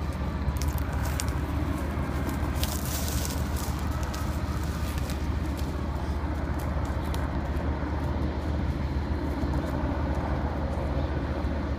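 Steady rumble of road traffic on a multi-lane highway, with scattered sharp crackles through the first half or so.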